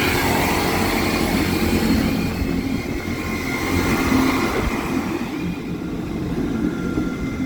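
Diesel train running through the level crossing: a steady engine rumble with rail and wheel noise, easing off gradually in the last few seconds.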